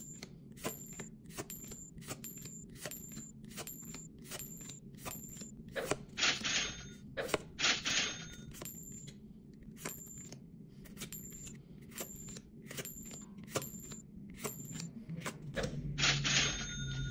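Edited-in sound effects: a steady tick about every three-quarters of a second, with bursts of bright jingling noise about six and seven and a half seconds in and again near the end.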